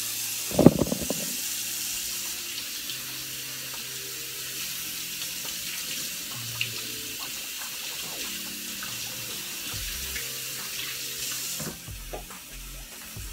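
Kitchen tap running into the sink as white mushrooms are rinsed under it, with one loud thump about half a second in. The water shuts off near the end.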